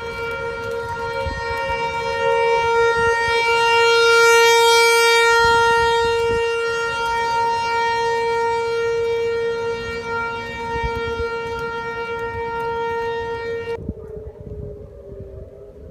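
Outdoor civil-defense tornado warning siren sounding one steady tone, swelling louder about four seconds in and slowly fading back, then cutting off abruptly near the end. A low rumble runs underneath.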